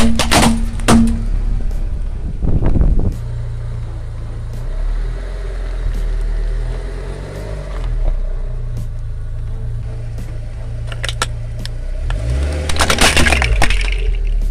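Car tyre crushing hard plastic objects: sharp cracks and snaps of plastic breaking in the first few seconds, a steady low engine hum as the car rolls, and another burst of crackling breakage near the end.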